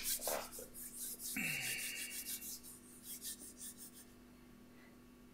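Hands rubbing together close to a headset microphone: a string of short scratchy friction noises that die away about four seconds in.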